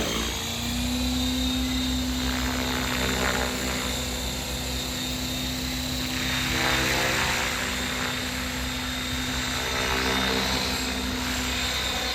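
Align T-Rex 550L electric RC helicopter running at a steady head speed: the motor's whine together with the whir of its Rotor Tech 530 main and tail blades. It is on a first test spin-up of a new build.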